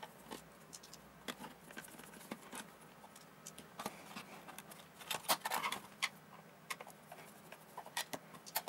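Scattered light clicks and taps of a plastic multimeter case and its small self-tapping screws being handled as the case is taken apart, with a small cluster of taps about five seconds in.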